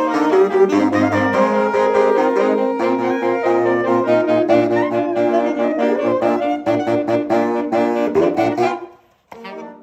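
Saxophone quartet of soprano, alto, tenor and baritone saxophones playing together, with held chords over repeated short notes in a driving rhythm. The playing breaks off about nine seconds in, then short detached notes start again near the end.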